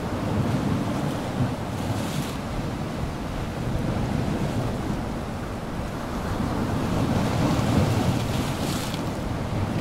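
Small waves washing through shallow water and floating slush around slabs of shelf ice, swelling and easing, with a brief splashy hiss about two seconds in and again near the end. Wind rumbles on the microphone throughout.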